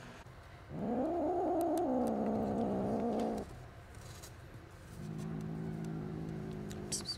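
Angry kittens growling: one long, drawn-out yowl that rises and then falls in pitch, about a second in. A lower, steady growl follows from about five seconds in, and a hiss starts at the very end.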